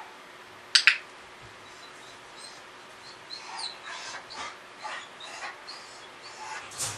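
A sharp double click a little under a second in, then a dog whimpering in a series of short high whines.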